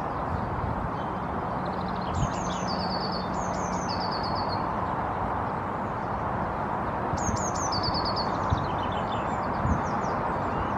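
A songbird sings two short phrases, about two seconds in and again about seven seconds in, each a few quick falling notes followed by a short run of repeated notes. A steady outdoor background noise runs underneath.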